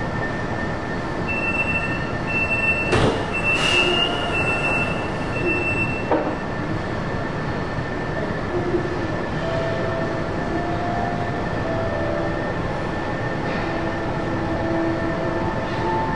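A metro train running slowly through a tunnel, heard from the front of the train: a steady rolling rumble, with a high wheel squeal and a few sharp clunks in the first six seconds, then a hum that shifts in pitch.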